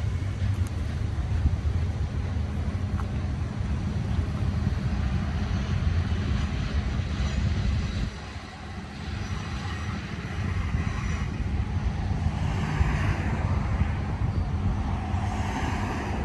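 BNSF double-stack container freight train rolling past on the upgrade: a steady low rumble with some engine drone. The rumble dips briefly about halfway through, and a louder rattle and hiss of the passing cars builds after that.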